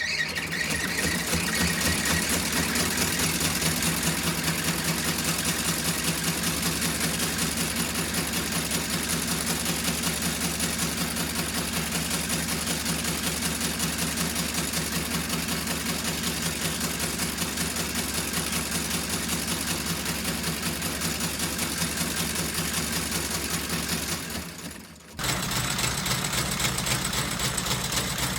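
A cobbler's sewing machine running at a steady rapid stitch, stopping briefly near the end and starting again.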